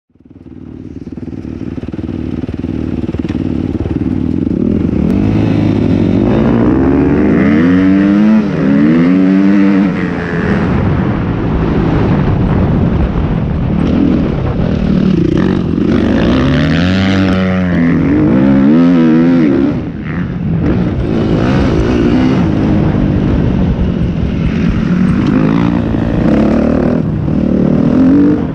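Suzuki RM-Z250 four-stroke single-cylinder motocross engine revving up and down as the bike accelerates, shifts and rolls off through the corners of a dirt track, heard close up from an onboard camera. It fades in over the first couple of seconds, and the revs drop briefly several times when the throttle is closed.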